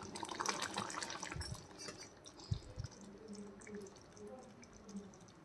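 Metal ladle stirring thick tamarind curry in a steel pot for the first couple of seconds, then the curry simmering with soft, sparse bubbling pops.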